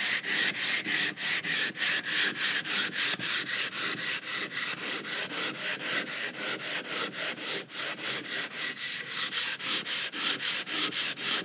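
Sandpaper on a rigid hand sanding block being rubbed back and forth along the edge of a wooden guitar neck in quick, even strokes, about four a second. This is finish sanding to blend the fretboard edge into the neck so that no ridge is left.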